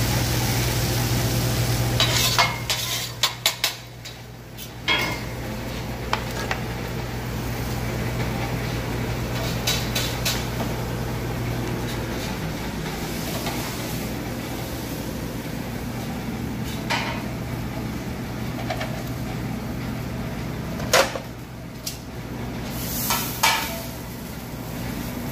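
Commercial kitchen work noise: metal pans, bowls and utensils clattering and clinking in scattered knocks, with a quick run of clatter a couple of seconds in and sharp knocks again near the end. A steady low hum runs underneath through the first half.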